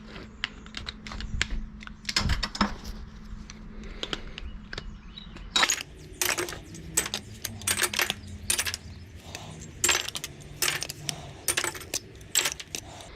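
Sharp metallic clinks and clanks at an irregular pace, growing louder and more frequent about halfway through, as pieces of scrap metal from air-conditioner units are handled and separated.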